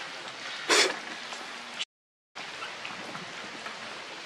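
Steady patter of rain with scattered drips, broken by one brief, loud burst of noise about a second in. The sound cuts out completely for half a second just before the two-second mark.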